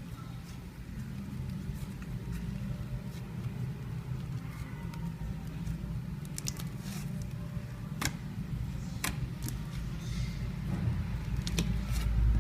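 Butter slime being squeezed and worked by hand: soft squishing with a few sharp clicks and pops, over a low rumble of handling.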